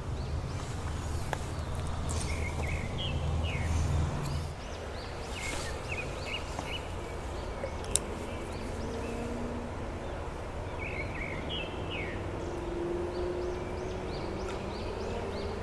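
Outdoor ambience with small birds chirping briefly a few times. A low rumble runs through the first four or so seconds, and a single sharp click comes about eight seconds in.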